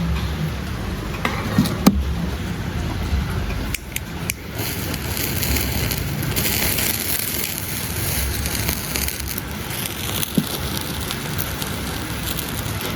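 Fire burning with a steady rushing noise and a few sharp pops and crackles, the loudest about two seconds in and again near four seconds.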